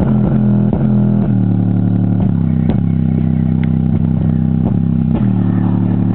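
Home subwoofer playing a bass-heavy electronic track at high volume: a held deep bass note with a steady beat of kick hits, distorted in the recording.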